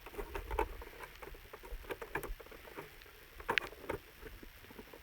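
Faint, scattered light clicks and taps of planer parts being handled and fitted during reassembly, with a slightly louder pair of clicks about three and a half seconds in.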